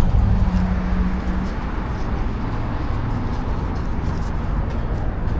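A 2007 American Standard R-410A outdoor air-conditioning condenser running: a steady whoosh of the fan air with a low hum that is strongest in the first second and a half. The system is low on refrigerant.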